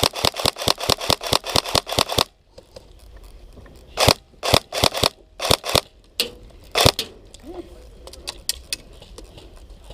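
Airsoft guns firing: a rapid full-auto burst of about seven shots a second for the first two seconds, then a handful of single shots between about four and seven seconds in, and fainter shots near the end.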